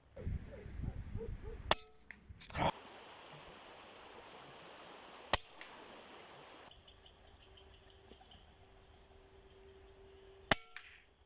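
PCP air rifle firing: sharp cracks a few seconds apart, four in all, with a low rumble before the first.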